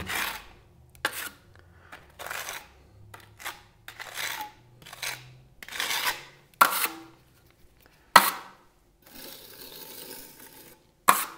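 Steel spatula scraping wet travertine plaster across a surface in a series of short strokes, with three sharp metallic clicks of the tool, and a longer, fainter smoothing stroke near the end.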